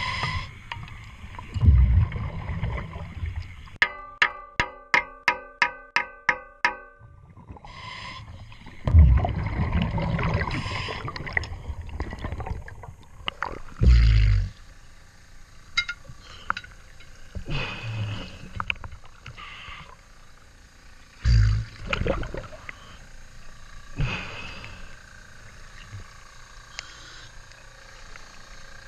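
Underwater and waterline sounds around a diver breathing through a regulator: recurring low rumbling bursts of exhaled bubbles and sloshing water. A few seconds in comes a quick run of about a dozen evenly spaced ringing pulses, about four a second.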